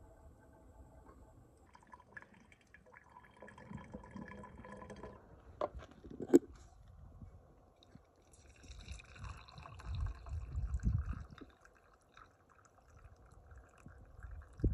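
Coffee poured from a vacuum thermos into a stainless steel camp mug, the liquid splashing into the mug as it fills. There is a single sharp click about six seconds in.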